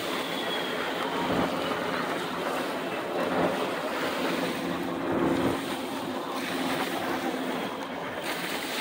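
Wind buffeting the microphone over the wash of shallow surf, with a steady low drone from a military helicopter hovering offshore.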